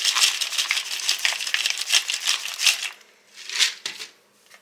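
A crinkly plastic snack bag rustling as peanuts are shaken out of it, with a dense crackle for about three seconds and then one shorter rustle.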